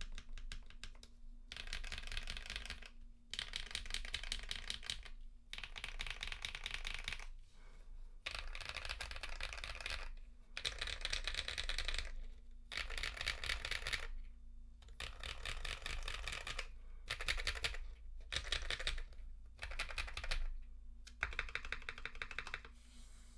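Typing on a custom top-mount mechanical keyboard with lubed and filmed KTT Rose linear switches, an FR4 half plate and ePBT keycaps. Rapid keystrokes come in bursts of one to two seconds with short pauses between them.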